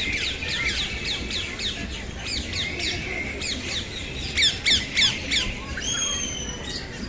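Birds squawking: a rapid run of sharp, downward-sliding calls, several a second, loudest about four and a half to five seconds in, then one longer held whistled note near the end.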